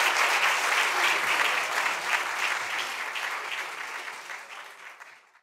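Audience applauding, fading out over the last few seconds to silence.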